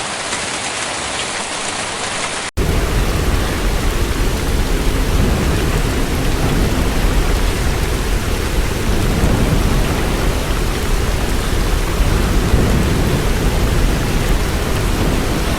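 Heavy hail and rain pounding down in a dense, steady clatter. About two and a half seconds in it cuts abruptly to a louder recording of the storm with a deep rumble underneath.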